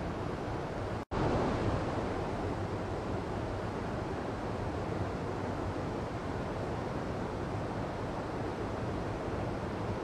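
Mountain stream rushing and splashing over boulders: a steady, even rush of white water. About a second in, the sound cuts out for a split second and comes straight back.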